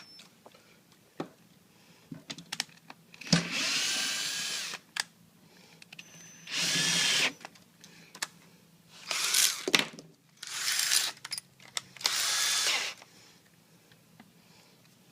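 Power drill run in five short bursts, each about a second long, its motor whine rising and falling in pitch, with small handling clicks in between. The drill is working screws and screw recesses into a particle board drawer.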